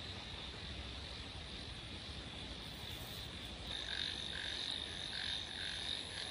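Frogs calling in a wet field: a faint, steady high-pitched chorus, joined a little over halfway by a nearer frog croaking over and over, about three calls a second.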